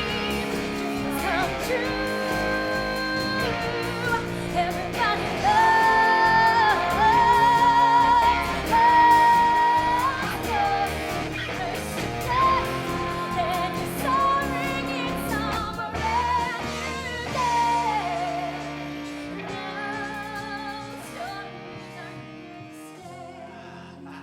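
Pop-style musical number ending: held, wavering vocal notes over band accompaniment with guitar, the music fading out over the last few seconds.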